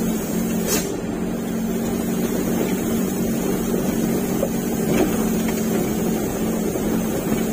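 Truck's diesel engine running steadily under way, a constant low drone with a steady pitch.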